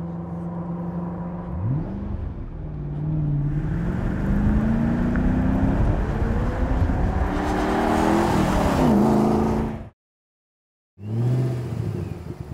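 2006 Ford GT's 5.4-litre supercharged V8 accelerating, its revs rising and falling several times as it grows louder. The sound cuts off abruptly about ten seconds in, then a short burst of engine sound returns and fades.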